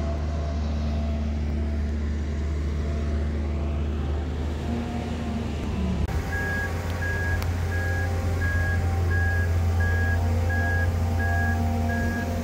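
A boat travel lift's engine running with a steady low hum. From about halfway through, its warning beeper sounds in short, even beeps, a little over two a second, while the lift hoists a sailboat.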